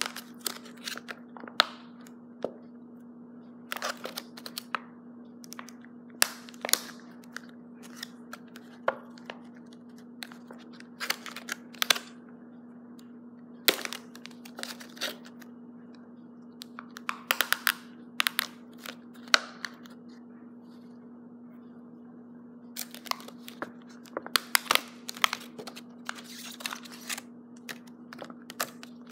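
Stiff clear plastic blister packaging being pried open and handled, crackling and snapping irregularly, with a quiet pause a little past the middle.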